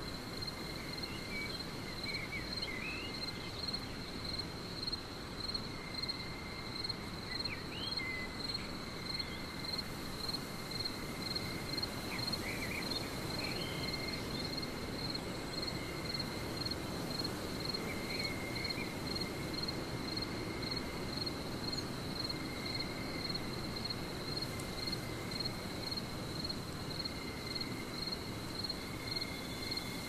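Forest ambience: a steady chorus of insects, with a high trill pulsing about twice a second over a soft, even hiss. A few brief chirps break in now and then.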